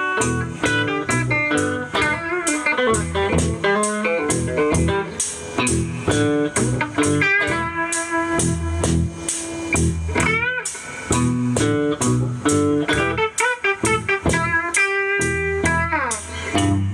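Instrumental blues on guitar over a steady beat, with notes gliding up and down in pitch several times.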